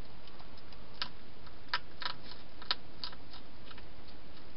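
A wild hedgehog eating from a bowl inside a plastic feeding box: a run of irregular sharp clicks and crunches, densest in the middle, over a steady background hiss.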